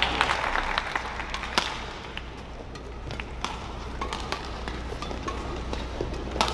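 Badminton play: a few sharp cracks of rackets striking the shuttlecock, spaced a second or more apart, over the steady low hum and murmur of an indoor hall.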